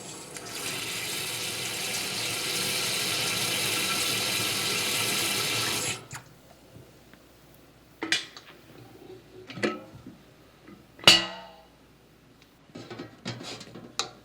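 Tap water running into an electric kettle for about six seconds and cut off abruptly, followed by a series of knocks and clicks of the kettle being handled, the loudest about eleven seconds in.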